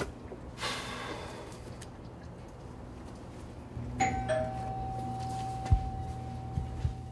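Doorbell chime rung by pressing the button: two notes a fraction of a second apart, the first note ringing on steadily while the lower second one dies away quickly. A sharp low thump follows about a second and a half later, with two softer ones near the end.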